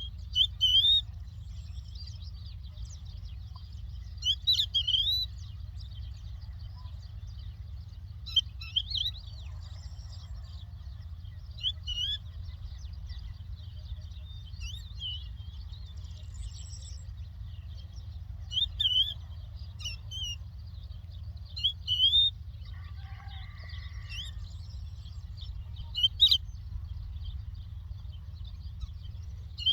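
A lark singing in short phrases of quick, high whistled notes that rise and fall, repeated every few seconds, over a steady low hum.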